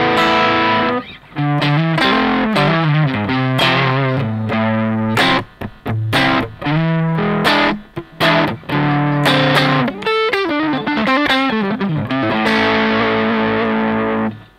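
Electric guitar played through a Vox StompLab on a stompbox-style overdrive setting, heavy in the mids. It plays distorted riffs and held chords that are cut short, with several brief stops between phrases.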